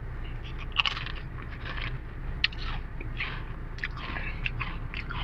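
Mister Potato sweet potato crisps, eaten with ice cream, being bitten and chewed: an irregular run of crisp crunches and crackles, the sharpest about a second in.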